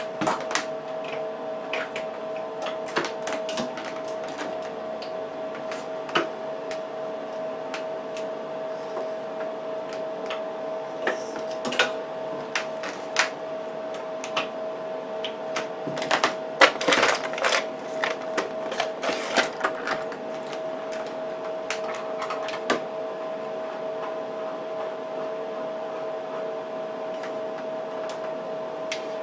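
A steady two-note electrical hum from running bench test equipment, under scattered clicks and knocks from a signal generator and its cable being set up by hand. The clicks come in a dense cluster a little past the middle.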